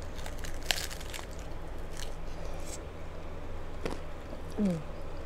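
A hard-shell taco bitten into and chewed, with crisp crunches of the shell about half a second to a second in and a few more spread over the next few seconds.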